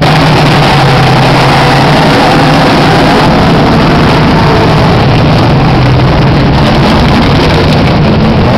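Very loud, rough engines of Chevrolet Opala drag-race cars running at once in the staging lane, a steady deep engine note without big revs.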